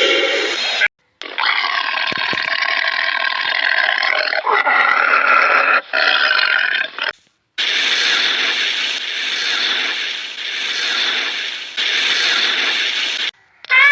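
A series of animal calls cut together, with short breaks between them: pitched, wavering calls in the first half, then a long rough, breathy growl that swells and fades several times.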